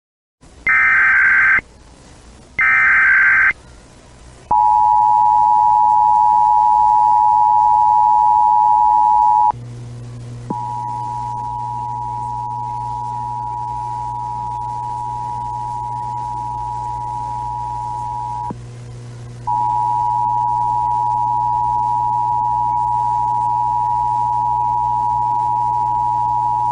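Emergency Alert System header: two short bursts of screeching digital data tones, then the EAS two-tone attention signal sounding steadily. The attention signal breaks off briefly twice, and a low hum joins it at the first break.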